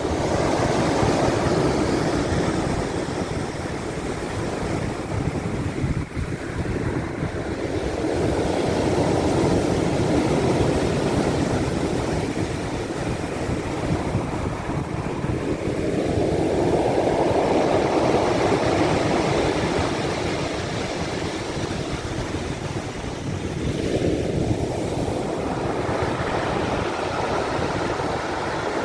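Black Sea waves washing in on the shore, each wave swelling and falling back about every eight seconds, over a steady low rumble.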